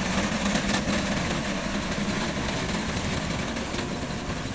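Tractor engine running steadily under load, driving a mounted reaper as it cuts standing wheat.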